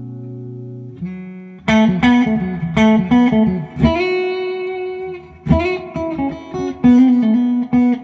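Duesenberg Starplayer Special electric guitar on its humbucker pickups, compressor switched off, played clean-ish through a Fender '65 Reissue Deluxe Reverb amp. A held chord rings out and fades for about a second, then a run of single-note licks with some notes held, starting just before two seconds in.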